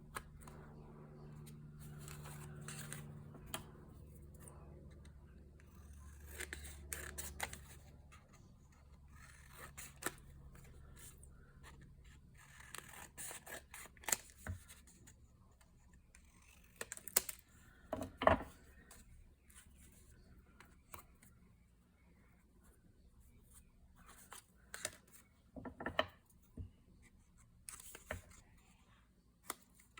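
Paper being handled and cut with scissors: scattered rustles, scrapes and snips, with a few sharper taps on the work surface. A faint low hum sits under the first several seconds.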